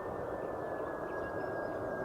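Airbus A330 jet engines on approach: a steady rumbling rush with a high whine that slowly falls in pitch.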